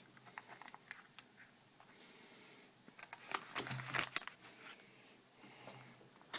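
Handling noise from a Sony Handycam camcorder and its packaging: scattered small clicks and rustles, with a busier burst of rustling and clicking about three to four seconds in.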